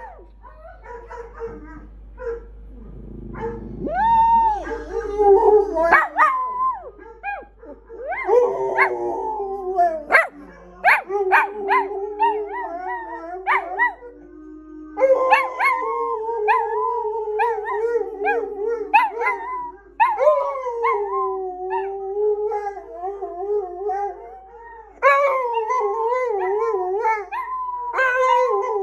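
Pet dogs howling in long, wavering, drawn-out notes, at the end a chocolate Labrador with its head thrown back. The howling breaks off and starts again abruptly a few times.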